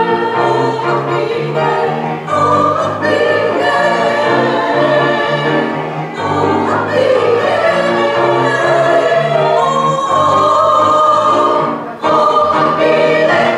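Women's choir singing in harmony with grand piano accompaniment.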